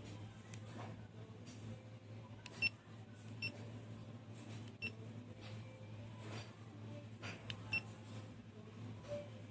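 GoPro Hero 4 Silver camera giving short electronic beeps, about four spread over several seconds, the first the loudest, with faint clicks over a steady low hum.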